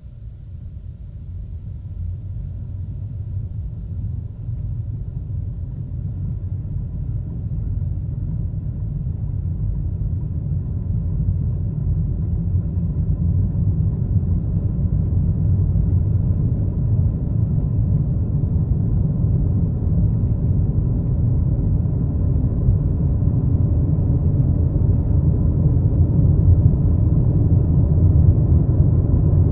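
A deep, steady rumble that slowly grows louder.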